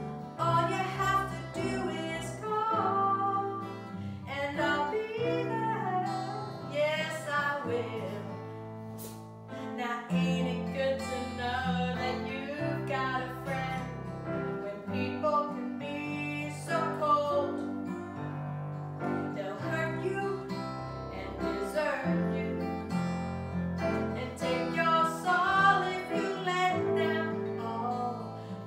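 A woman singing a song, accompanied by strummed acoustic guitar and an electric keyboard holding low notes.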